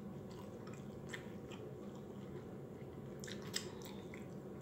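A person chewing food close to the microphone, with scattered short crisp clicks from the mouth, clearest about three and a half seconds in.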